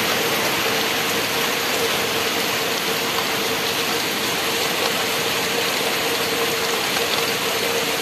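Heavy rain falling steadily, a dense even hiss, with a faint steady hum underneath.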